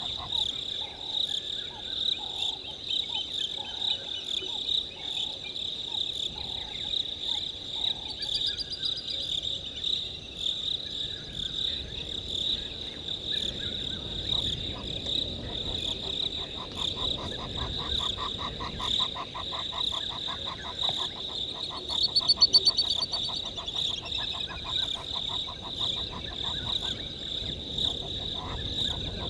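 Chorus of insects and frogs: a steady high-pitched insect trill, with frogs calling in series of short pulsed notes. The frog calls peak in a louder rapid run of pulses about three-quarters of the way through.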